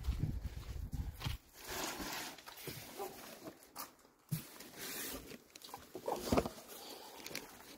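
Scattered footsteps on a motorhome's floor, with rustling and light knocks from a cardboard box and papers being carried.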